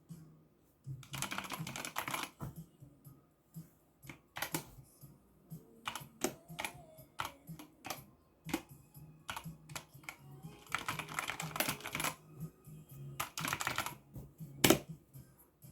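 Keystrokes on an ABKO AN02 mechanical keyboard with red linear switches: a few quick bursts of rapid typing with scattered single key presses between them, and one louder keystroke near the end.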